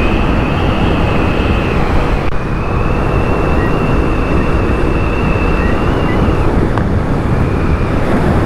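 V-twin motorcycle riding along in gear, its engine drone buried under heavy wind rush on the helmet-camera microphone, with a thin steady high whine on top.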